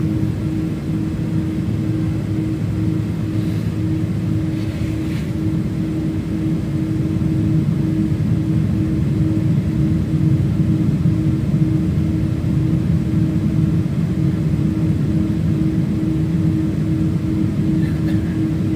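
Airliner cabin noise while taxiing: the jet engines at taxi power and the rolling aircraft make a steady low rumble with a constant hum. It grows a little louder about eight seconds in.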